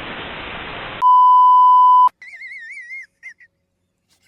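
TV-style static hiss, cut off about a second in by a loud, steady, high beep like a censor or test-tone bleep lasting about a second, followed by a high warbling whistle that wavers up and down in short broken phrases.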